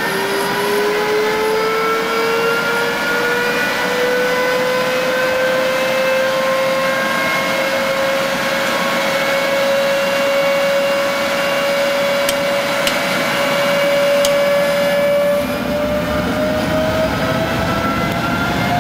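Rolls-Royce Derwent Mk 8 turbojet spooling up during a start. A whine rises in pitch over the first few seconds, holds steady, then climbs again as the engine lights up about fifteen seconds in, with a deep rushing rumble joining it. A few faint ticks sound shortly before the light-up.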